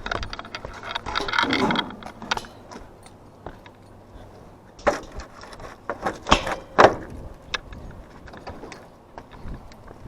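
Metal parts and tools clicking, rattling and knocking as an evaporative cooler is taken apart by hand. There is a scraping rattle about a second in and sharp clicks and knocks between about five and seven seconds in.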